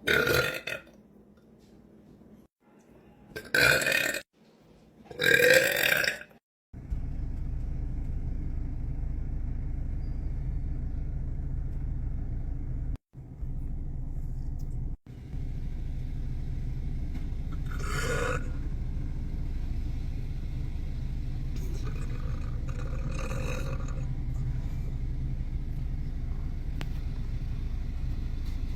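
A man's deliberate belches, made by swallowing air: three loud burps in quick succession in the first six seconds. Then, over a steady low rumble, two more burps about 18 and 23 seconds in.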